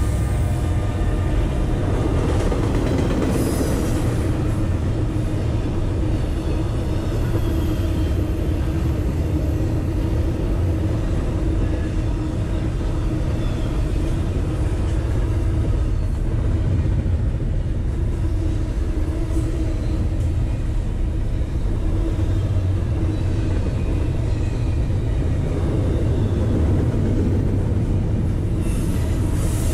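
Norfolk Southern intermodal freight train passing at close range. A diesel locomotive's engine drone fades over the first second or so, giving way to the steady rumble and rattle of loaded well cars rolling over the rails.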